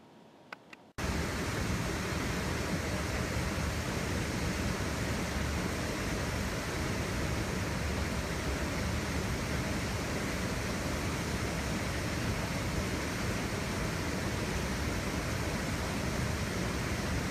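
Steady, even hiss like static or white noise, starting abruptly about a second in after faint room tone and two small clicks.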